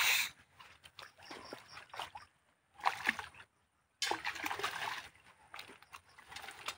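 A hooked fish splashing and thrashing at the water surface as it is played into a landing net, with water sloshing around the net. The loudest splash comes right at the start, then shorter splashes and sloshes come and go.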